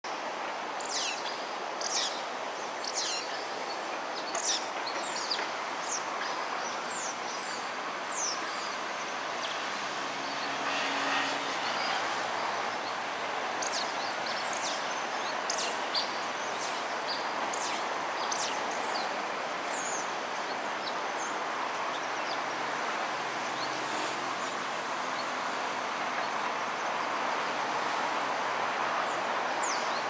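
Steady hiss of distant city traffic, with many short, high, falling chirps scattered throughout.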